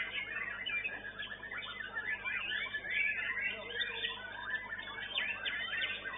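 White-rumped shamas singing at once, a dense tangle of overlapping rising and falling whistled phrases.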